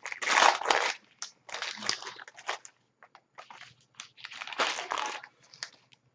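Plastic wrapper of a trading-card pack crinkling in several bursts as it is handled and opened.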